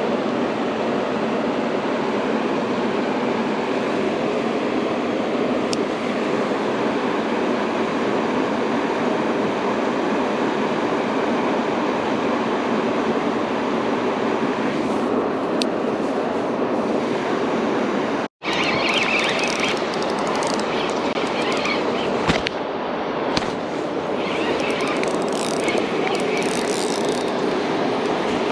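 Steady rush of river water. It cuts out for an instant about two-thirds through, and afterwards some brighter, patchy higher sounds ride on top of it.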